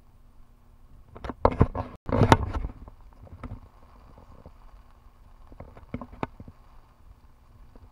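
Handling noise from a handheld camera and umbrella: a flurry of knocks and rustles as the view is swung round, cut off by a brief dropout about two seconds in, then a few single sharp clicks later on, over a faint steady hum.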